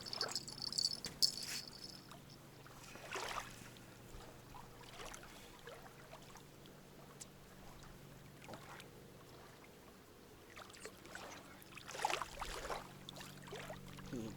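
A steady low engine hum that starts abruptly and runs on evenly, with a few brief rustling or splashing noises over it.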